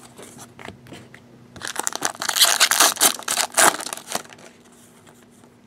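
Foil trading-card pack wrapper crinkling and tearing as the pack is opened by hand: a loud burst of crackling from about a second and a half in to about four seconds in. Before it, light clicks of cards being handled.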